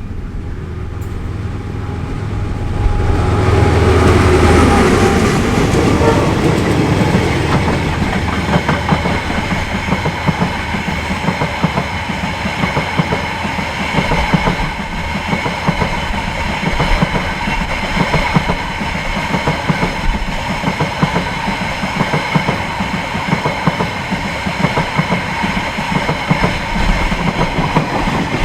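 Diesel-hauled freight train passing close by. The locomotive's engine swells loudest a few seconds in, then a long string of wagons rolls past with a steady rhythmic clatter of wheels over the rails and a steady high ringing tone.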